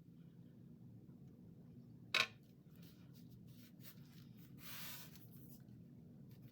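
Paper journal pages and crafting supplies being handled on a tabletop: one sharp tap or click about two seconds in, a few light ticks, and a brief rustle of paper sliding about five seconds in, over a steady low hum.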